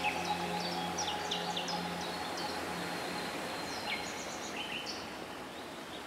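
Several wild birds chirping with short, quick notes, some rising and some falling. The last held chords of background music fade out over the first couple of seconds.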